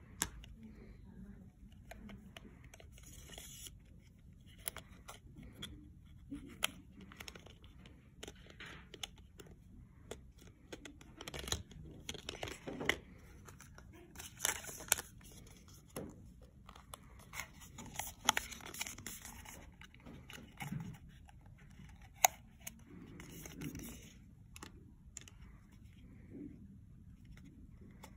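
Paperboard eyeliner-pen boxes being handled: tuck flaps flicked open and shut, cardboard rustling and sliding, and boxes and metal pens set down with scattered light clicks. Near the end a pen is slid into a box.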